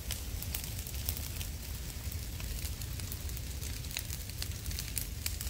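Felled, dried swamp brush burning in the open, crackling with scattered sharp pops over a steady low rumble.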